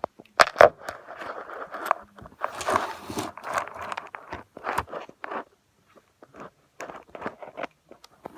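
Close handling noises from play-doh and its plastic pieces being worked by hand: irregular clicks and knocks with scraping and crunching rustles, and a short lull about two-thirds of the way in.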